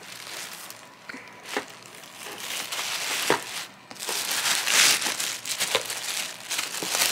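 Clear plastic bag crinkling and rustling as hands pull it off a pair of roller skates. It is quieter at first and louder and busier from about halfway through, with scattered sharp crackles.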